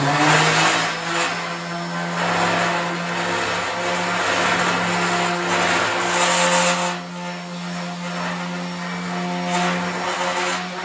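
Palm sander with 80-grit paper running steadily on bare sheet steel, a steady hum under a scratchy sanding noise that swells and eases as it is pushed across the metal. The steel is being sanded to prepare it for paint.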